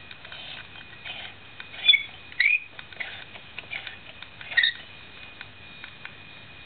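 A glass lamp bulb squeaking as it is handled and twisted at its socket: three short sharp squeaks, about two seconds in, half a second later, and near the end. Underneath is a steady high whine with light crackling from the running lamps and their ballasts.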